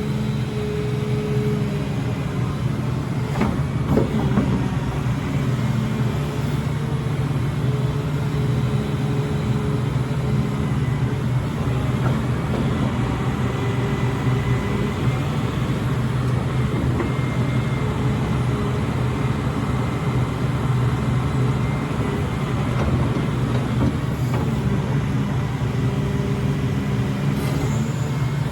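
Volvo ECR235EL crawler excavator's diesel engine running steadily, with a higher tone that comes and goes and a couple of knocks about three to four seconds in.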